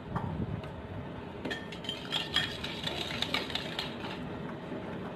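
Metal ladle stirring thick corn soup in a stainless steel saucepan, scraping and clinking against the pot. The clinks stop about four seconds in.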